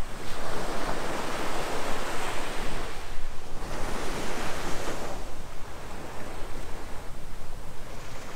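Small surf breaking and washing up a sandy beach, in rising and falling surges.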